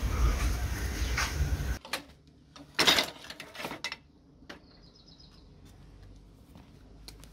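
A steady rumbling hiss, then, a couple of seconds in, a clatter of a plastic scrubber head being pulled from a wooden crate of metal and plastic garden tool heads, followed by a few light knocks and clicks.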